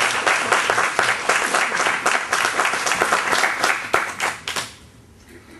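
Audience applause: many hands clapping, dying away about four and a half seconds in with a few last claps.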